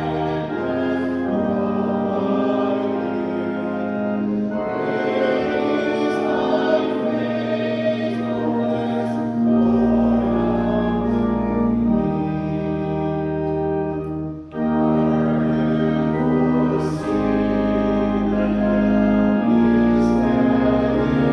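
Church organ playing slow, sustained chords with deep bass pedal notes, the harmony changing every second or two. The music breaks off briefly about fourteen seconds in.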